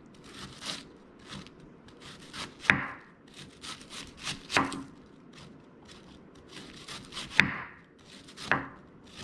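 Knife finely slicing cabbage on a cutting board: a run of quick soft cuts, with four sharper knocks of the blade on the board.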